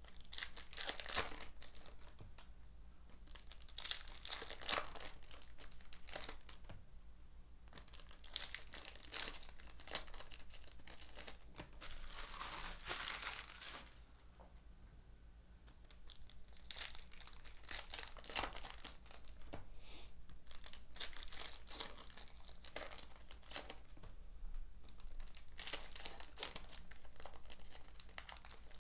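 Foil trading-card pack wrappers being torn open and crinkled by hand, in repeated bursts of crackling with a short lull about halfway through.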